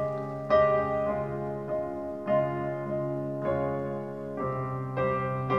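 Piano played live: slow chords struck about once a second, each left to ring into the next.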